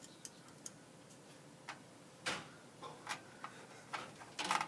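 Irregular small metallic clicks and taps of a screwdriver and screws against a computer case as a motherboard is screwed down, with a louder cluster of clicks near the end.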